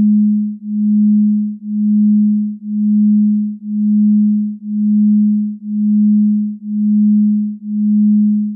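Low electronic pure tone near 200 Hz, pulsing steadily: it swells and fades about once a second in an even, hypnotic rhythm.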